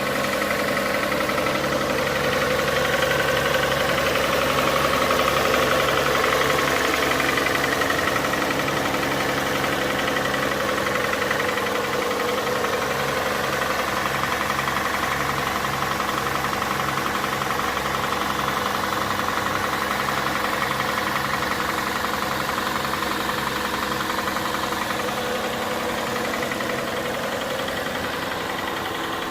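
Hyundai Santa Fe 2.7 V6 petrol engine running cold, with a steady, regular knock in the engine's sound.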